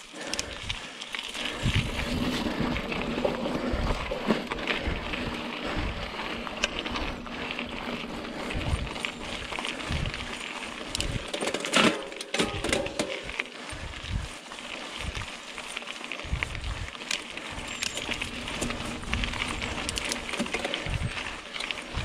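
Mountain bike being ridden on a dirt singletrack: tyres on the trail, chain and frame rattling, with irregular low thumps and scattered clicks, and one sharp, loud knock about twelve seconds in.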